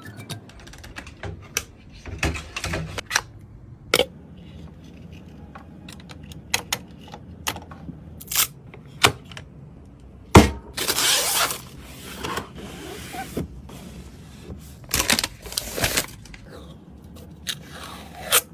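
Handling noise from assembling computer parts: irregular clicks and knocks, with two short stretches of scraping or rustling, the first just after a loud knock about ten seconds in.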